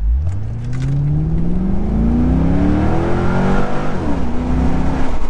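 2001 C5 Corvette's LS1 V8 under full-throttle acceleration. The engine note climbs steadily, then drops sharply about four seconds in as the automatic shifts up. The rear tyres grip without spinning.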